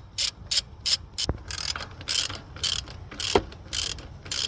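Ratchet wrench worked back and forth, about two rasping strokes a second, backing out an EGR valve mounting bolt on a GM 3800 V6; a couple of sharper clicks fall among the strokes.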